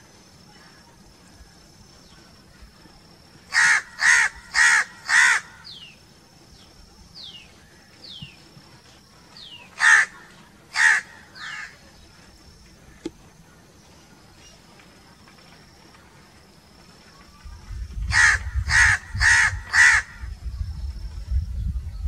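House crows cawing: a run of four harsh caws a few seconds in, two more with a fainter third near the middle, and another run of four near the end. Thin falling whistled notes come between the caw groups, and a low rumble comes in over the last few seconds.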